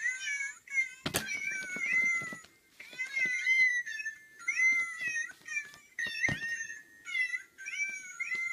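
Cat mewing over and over in short, high-pitched calls, with two sharp knocks, one about a second in and one about six seconds in.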